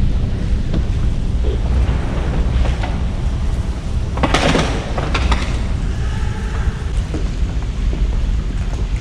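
Steady low rumble of outdoor noise, like wind buffeting the microphone, with a short sharp noisy burst about four and a half seconds in and a few clicks just after.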